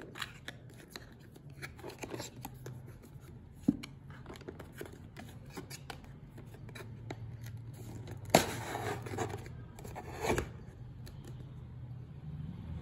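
Cardboard and plastic packaging of a GoPro HERO7 White box being handled and opened: scraping, rustling and scattered light clicks, with a louder scraping rustle about eight seconds in and another about ten seconds in.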